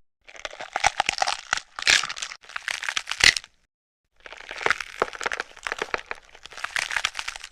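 A homemade, made-up sound effect meant as a harpy eagle call: a dry crackling, clicking rattle. It comes in two runs of about three seconds each, with a short silence between them.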